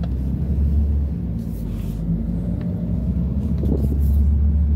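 Steady low rumble of a car driving, engine and road noise heard inside the cabin, swelling louder about half a second in and again near the end.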